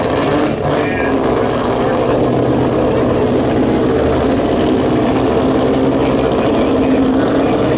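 Race car engine running loudly at a fairly steady pitch, idling or holding low revs rather than accelerating.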